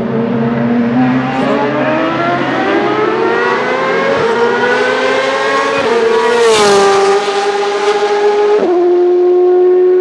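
Ferrari 458 GT2's 4.5-litre naturally aspirated V8 race engine accelerating hard, its pitch climbing steadily for about six seconds with a brief break about four seconds in. The car then passes close by and the pitch falls. Near the end the engine shifts up and holds a steady high note.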